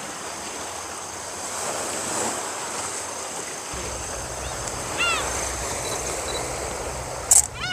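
Sea waves washing against a rocky shore, with low wind rumble on the microphone coming in about halfway through. A short high call sounds about five seconds in.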